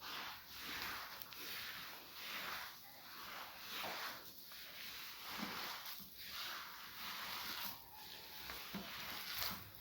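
Moist semolina-and-coconut ghriba dough being mixed in a bowl: a rhythmic wet squishing and rubbing, about once a second.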